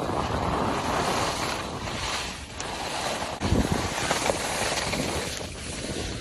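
Wind buffeting the microphone while following a rider down a ski slope at speed, mixed with the steady hiss of a board carving across snow.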